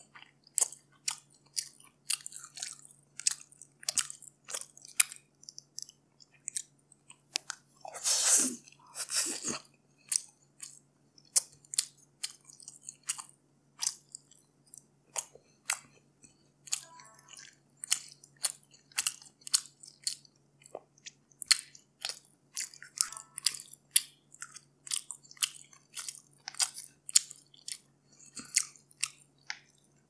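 Close-miked wet chewing and mouth clicks of a person eating grilled stingray and rice, many short smacks in an uneven rhythm. About eight seconds in, a louder, longer rushing sound stands out. A steady low hum runs underneath.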